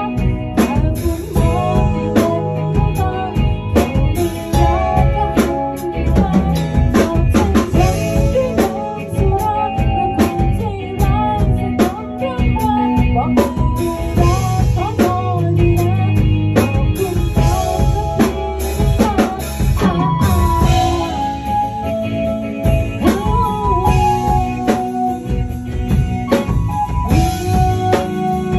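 Band music with guitar and drum kit playing a song, a woman's voice singing over it.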